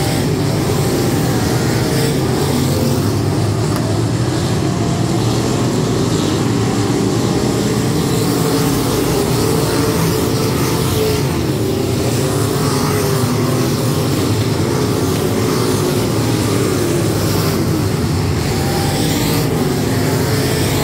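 A field of USRA limited modified dirt-track race cars with V8 engines running around the track, their engines blending into one loud, steady drone.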